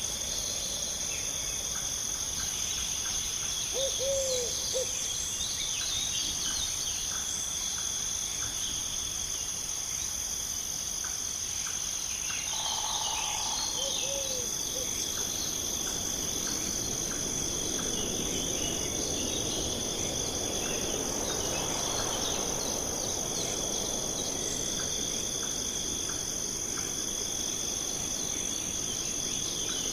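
A forest night chorus: crickets and other insects keep up a steady high trill while birds chirp here and there. A short low call comes about four seconds in and again about fourteen seconds in, and a soft rushing sound swells up and fades in the middle.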